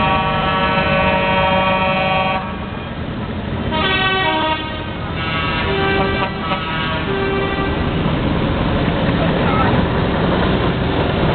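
A long steady toot of about two and a half seconds, then a few shorter toots at different pitches from parade vehicles' horns and whistles. Under them and after them runs the steady noisy rumble of the vehicles passing close by.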